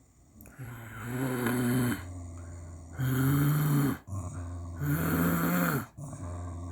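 American Cocker Spaniel making long, pitched grumbling sounds in time with its breathing, a louder sound of about a second followed by a quieter one, over and over.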